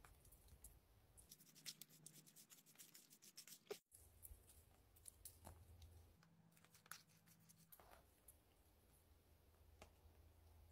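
Near silence with faint scattered clicks and ticks.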